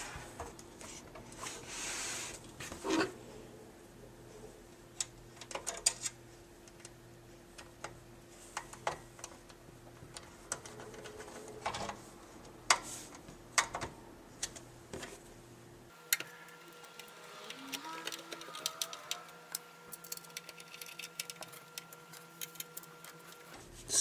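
Hand screwdriver driving screws through the metal back panel of a PC case into a power supply: scattered small metal clicks and faint scraping. In the last several seconds a quick run of small ticks.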